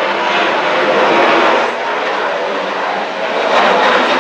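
Jet engines of a Boeing 737 climbing out after takeoff: a steady, loud rushing roar that dips a little in strength midway and swells again near the end.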